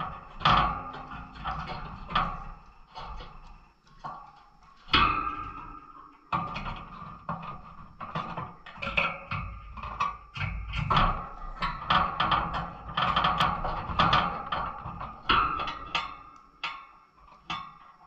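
Canaries hopping and landing on the wooden perches and wire of their cage: irregular clicks, knocks and rattles.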